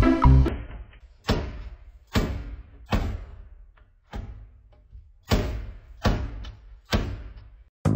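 Cat pawing and digging inside a covered litter box, its paws knocking against the box's panels: a string of hollow thuds about one a second, each ringing briefly.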